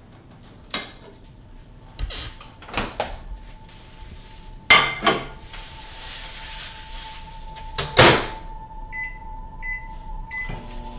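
Kitchen handling sounds: small clicks and knocks, then two loud clunks about five seconds in and another about eight seconds in, as the microwave is loaded and its door shut. Three short microwave keypad beeps follow near the end, over a steady hum.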